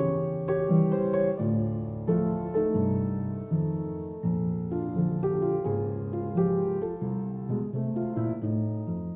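Background music: a piano playing a gentle melody with clear, decaying notes.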